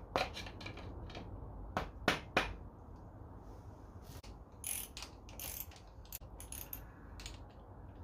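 Ratchet wrench clicking, with a few sharp metal clicks and short rasping runs of the pawl, as bolts on the engine are worked.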